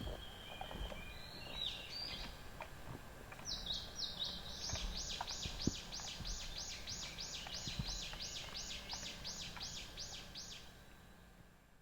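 A wild bird singing in the forest: a few short high calls, then from about three seconds in a long series of about twenty quick, evenly repeated downslurred notes, roughly three a second, which stops shortly before the sound fades out.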